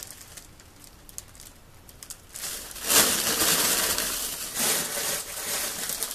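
Clear plastic bag crinkling and rustling as items are stuffed into it: faint scattered rustles at first, then louder, continuous crinkling from about two and a half seconds in.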